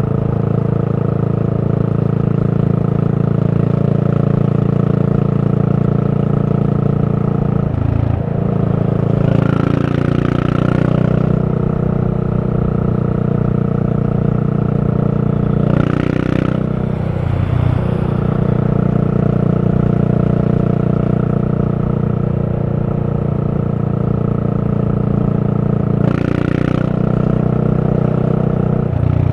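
Yamaha SR400's single-cylinder four-stroke engine running steadily under way through a Goods tapered-cone slip-on muffler. Its note breaks briefly about three times.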